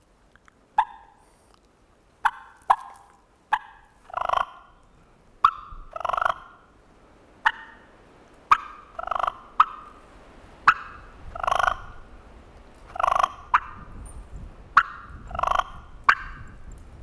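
Wild turkey clucks and purrs made on a combo-cut diaphragm mouth call: about a dozen sharp single clucks, many followed by a short rolling purr made by fluttering the tongue against the reed.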